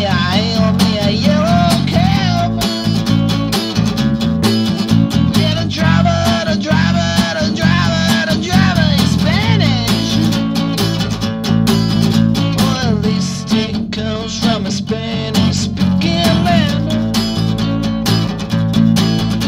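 Acoustic punk song: a strummed acoustic guitar with a wavering melody line over it, playing steadily.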